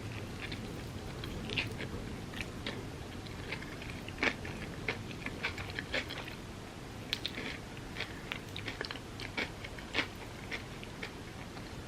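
Close-miked eating sounds of a person biting and chewing Dubai chocolate crepes: a run of short, irregular mouth clicks.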